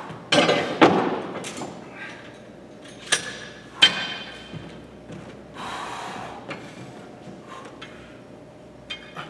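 Several sharp metal clanks and knocks from block-style adjustable dumbbells being lifted off the floor and handled, most of them in the first four seconds. A short soft hiss comes near the middle.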